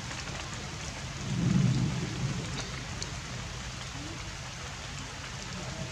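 Light rain falling as a steady hiss, with a brief low rumble about a second and a half in.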